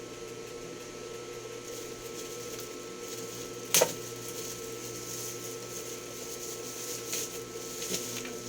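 Handling of a boxed item during unboxing: one sharp knock about four seconds in, with faint rustling and small clicks later, over a steady background hum.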